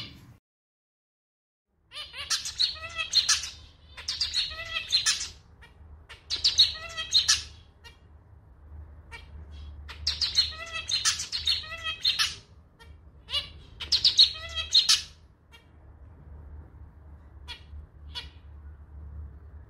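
Male zebra finch singing in rhythmic phrases of nasal notes that sound like a small, slightly out-of-tune clarinet. After a brief silence it sings five phrases, then gives a few short single calls near the end, over a low steady hum.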